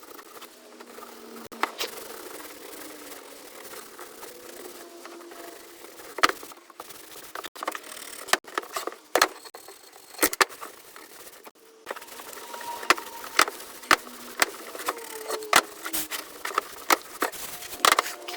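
A series of sharp knocks and clicks from work on a wooden piece, scattered at first and then coming about twice a second in the second half.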